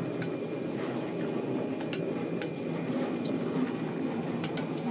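Eggs being cracked on the rim of a steel pot: a few sharp, separate clicks over a steady low rumble.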